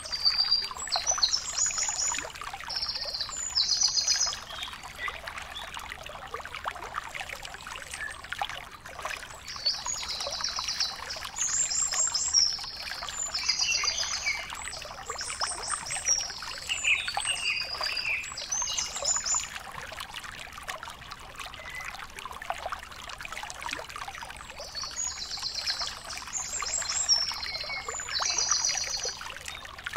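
Outdoor ambience: short, high, trilling calls repeated in clusters over a steady crackling, trickling noise.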